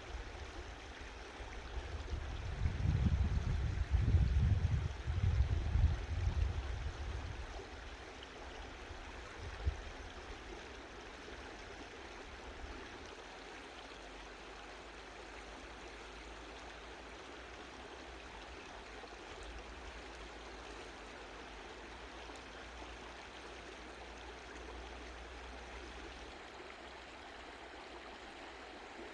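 Mountain stream flowing gently, a steady, even rush of water. From about two to seven seconds in, a loud low rumble rises over it, and a single short knock comes near ten seconds.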